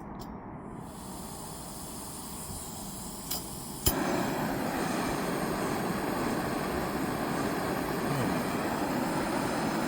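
Gas camping stove lighting: a steady hiss, a couple of sharp clicks a little before halfway, then the burner catches and runs with a louder, steady rushing flame noise.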